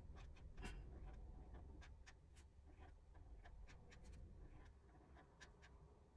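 Faint scratching and tapping of a marker tip on paper, in short repeated strokes as small circles on a printed chart are coloured in.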